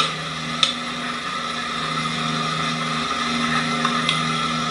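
A steady mechanical hum like a running engine, with sharp cracks about half a second in and again near the end.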